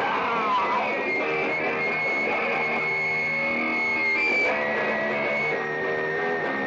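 Music: a guitar track, with a sustained high tone held throughout and a short downward pitch slide near the start.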